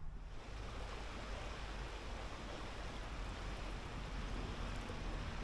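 Water of a small river flowing and rippling past bankside reeds: a steady, even rushing hiss that sets in suddenly at the start.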